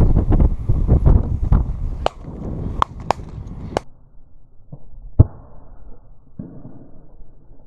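Low rumbling on the microphone, then a handful of sharp clicks and knocks, the loudest a single sharp knock about five seconds in.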